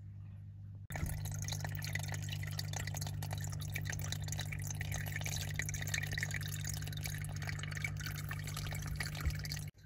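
Small waterfall in a formicarium's water feature, trickling and splashing over pebbles into a shallow pool with many small drips, over a steady low hum. The water sound starts suddenly about a second in and cuts off just before the end.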